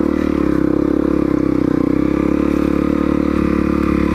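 Honda CRF250L's single-cylinder four-stroke engine running at steady, fairly high revs as the bike is ridden.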